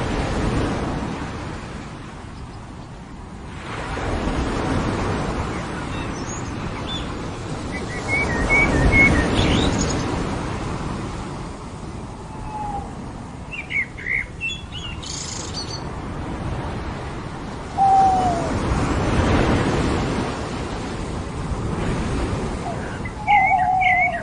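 Ocean waves breaking and washing up a beach, swelling and fading every few seconds, with scattered bird chirps and calls over the surf. One falling call comes about three quarters of the way through, and a burst of calls near the end.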